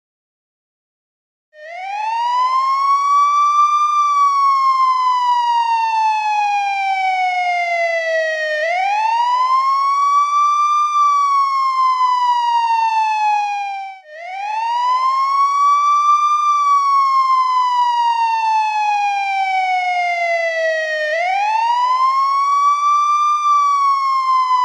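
Police car siren wailing: each cycle rises quickly in pitch and then falls slowly, repeating about every seven seconds. It starts about a second and a half in, cuts out briefly around the middle and starts again.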